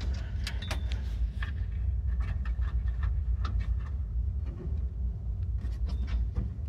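Small scattered metallic clicks and taps from turning the screws on the back of a desktop PC tower case and handling the case, over a steady low hum.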